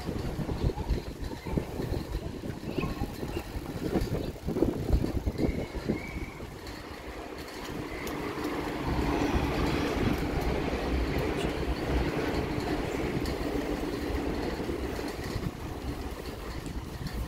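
Bicycle rattling and knocking as it rides over brick paving, with wind on the microphone. From about halfway a steadier hum of a passing motor vehicle swells up and then eases off.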